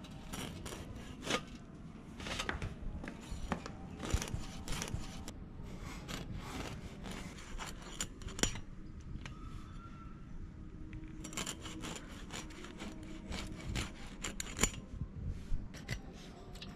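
Whole hilsa fish being scaled and cut into steaks against a bonti, the fixed upright curved blade of Bengali kitchens. Repeated short scraping and rasping strokes of the blade on scales and flesh come in irregular flurries, with a quieter stretch around the middle.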